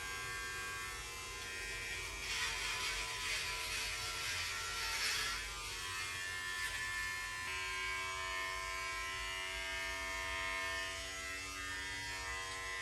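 Electric hair clippers buzzing steadily as they shave hair off a head, the hum shifting in pitch about halfway through.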